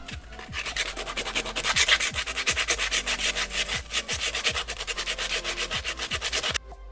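80-grit sandpaper rubbed by hand over the rim of a plastic dog disc in quick back-and-forth strokes, taking off raised, bite-damaged edges. The scraping stops abruptly near the end.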